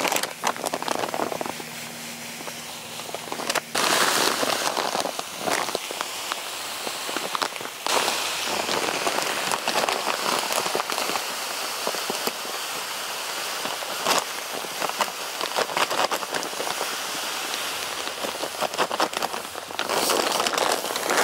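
Pelleted chicken feed pouring from a feed bag into a plastic 5-gallon bucket: a continuous rattling hiss of pellets falling onto plastic and onto the growing pile, with a quieter stretch for a couple of seconds near the start.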